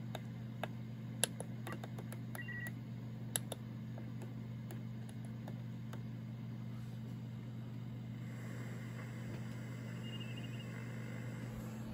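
Audio from a homebrew SSB receiver while its VFO is tuned quickly up toward the 40 m band: a steady low hum and hiss with scattered sharp clicks and a few brief whistles, and no station voices. The 80 m bandpass filter is still switched in.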